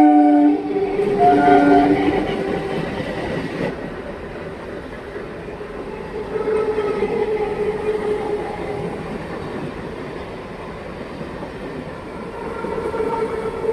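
Nine-coach EMU local train passing close by. A horn blast ends within the first half-second and a short second blast sounds about a second in, then the steady rumble and clatter of the coaches' wheels on the rails.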